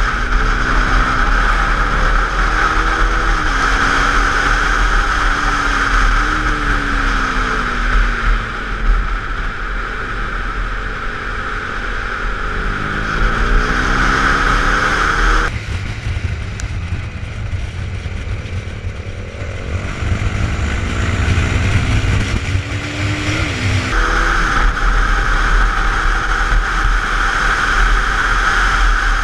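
KTM Duke 390 single-cylinder motorcycle engine, heard from on board at track speed. Its pitch climbs and drops back several times as the rider accelerates and changes gear, under heavy wind rush on the microphone. In the middle stretch the wind drops away and a low rumble takes over.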